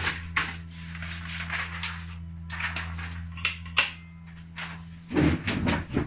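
Electric typewriter motor humming steadily while the typed sheet is pulled out of the platen, with paper rustling and several sharp clicks. The hum stops about five seconds in, followed by a stretch of low handling thumps and rustle.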